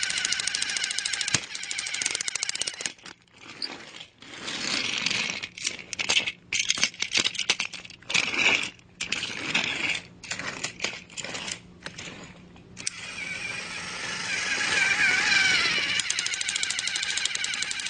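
Fast mechanical rattling and clattering made of rapid clicks. In the middle it is broken up by many abrupt stops and restarts, and it runs on steadily again near the end.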